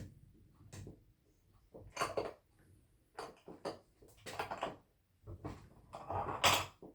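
Metal clicks, rattles and scrapes from a small clamp-on bench vise being handled and its screw and handle worked, in short irregular bursts with the loudest near the end.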